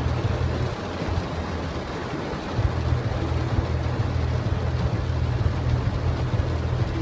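Heavy rain falling on a car's roof and windshield, heard from inside the cabin, over a steady low rumble that fades for about two seconds near the start.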